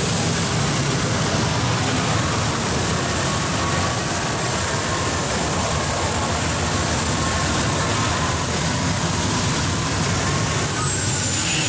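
Modified pulling tractor's engines running flat out as it drags the weight-transfer sled down the track: a steady loud run with a high whine over it. Near the end the whine falls in pitch as the tractor comes off power.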